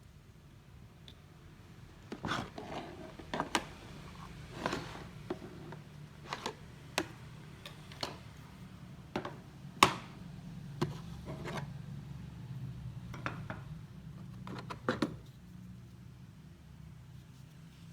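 Scattered clicks and knocks of a Modern MG-20Li cordless grinder and its parts being handled, with no motor running; the sharpest knock comes about ten seconds in.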